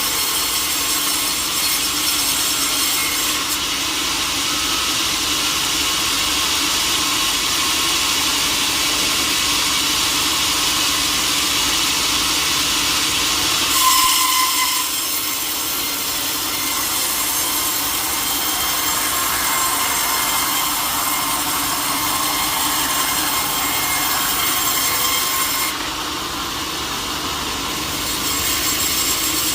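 Sawmill saw cutting through teak wood: a steady, loud, high hiss with a steady whine running through it. It gets briefly louder about halfway, and the high hiss drops for a couple of seconds near the end.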